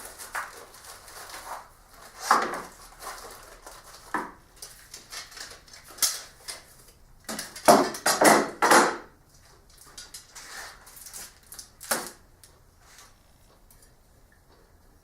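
Metal drawer slides being unpacked and handled, with irregular rustles and clinks of the parts and packaging, loudest in a cluster about eight seconds in.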